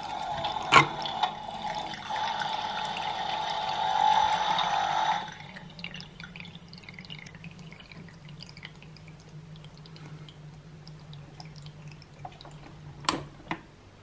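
Playgo toy coffee machine pouring a thin stream of water into a small plastic cup, which cuts off suddenly about five seconds in. Faint drips and a low steady hum follow, with a couple of sharp clicks near the end.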